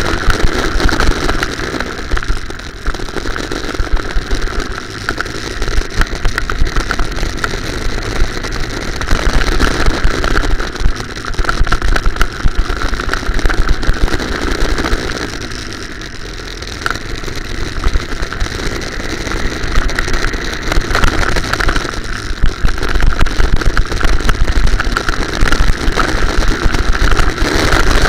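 Go-kart engine running hard under the driver, its level rising on the straights and dropping at the corners several times, with a constant clicking rattle from the kart's vibration.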